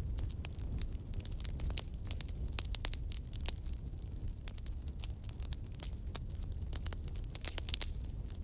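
Slotted metal spatula scraping and clicking against a steel kadai while stirring a dry, crumbly mixture, with many quick irregular ticks over a low hum.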